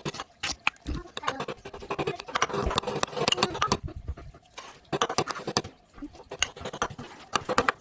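Frozen apple juice ice crunching and crackling in dense, irregular clusters of sharp clicks, with a brief lull near the middle.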